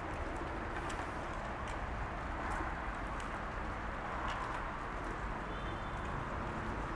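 Steady outdoor background noise with faint footsteps on asphalt, about one a second, and a brief high bird chirp near the end.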